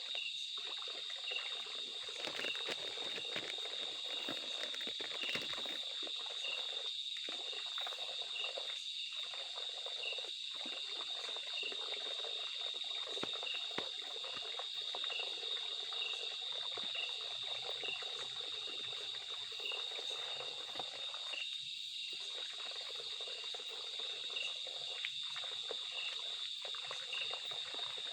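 Outdoor ambience: a steady high insect drone with a regular chirp repeating a little more often than once a second, over a continuous hiss of running or trickling water.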